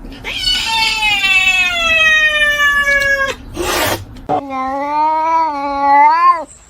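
Cat yowling: one long drawn-out call that slowly falls in pitch, a short rushing noise, then a second long wavering yowl that rises briefly before breaking off.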